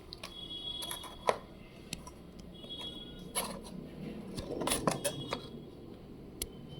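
Small hard-plastic clicks and taps from handling a wireless earbuds charging case and its earbuds: a few sharp clicks spread out, with a short cluster of taps just before the five-second mark.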